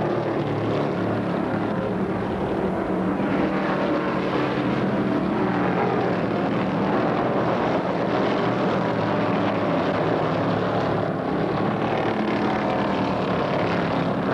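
NASCAR stock cars' V8 engines running at full racing speed: a steady, unbroken engine drone.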